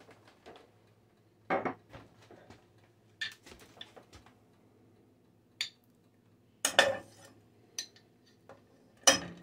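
Knife clinking and scraping against a butter dish as pats of butter are cut off a stick and dropped into an empty nonstick pot: a string of separate clinks and knocks, loudest about seven seconds in and just after nine.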